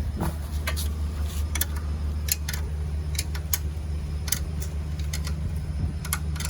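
Irregular sharp metallic clicks and clinks of a spanner working on mounting bolts, over a steady low hum.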